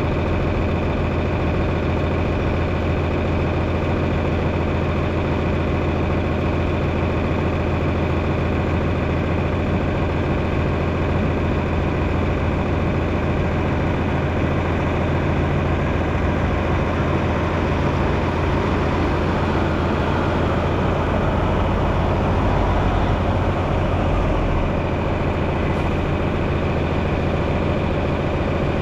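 Heavy engine running steadily at a constant speed, a deep even hum with no change in pitch.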